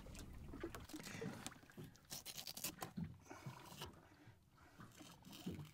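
Faint, scattered soft clicks and scrapes of a knife cutting into a skipjack tuna and gloved hands handling the fish.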